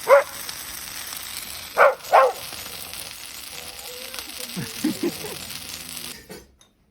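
A dog barks three times, a single bark followed by two close together, over a steady hissing crackle typical of a burning bonfire. Near the end the sound cuts away to a much quieter room.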